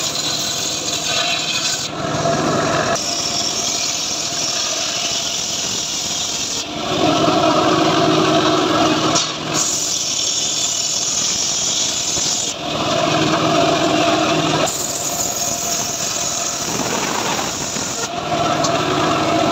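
Homemade bench circular saw ripping a plank of rain tree (trembesi) wood: steady cutting noise of the spinning blade in the timber, growing louder three times, about 7, 12 and 18 seconds in.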